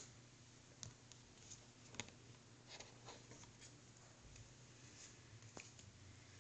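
Near silence: a few faint clicks and rustles of trading cards and paper being handled, over a low steady hum.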